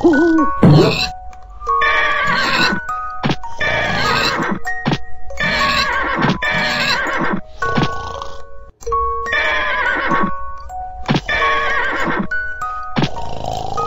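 Music with short, bell-like notes, over which wavering, whinny-like cries of about a second each repeat every second or two.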